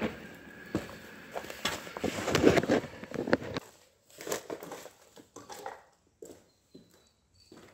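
Footsteps crunching on railway track ballast and rubble, with a loud cluster of rustling and knocks close to the microphone in the middle as the camera is picked up and set down again. After that come scattered, fading steps on the stones.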